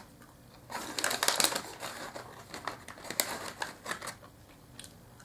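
Crisp dried apple chips crunching while being bitten and chewed: a quick run of crackles about a second in, thinning to scattered crunches.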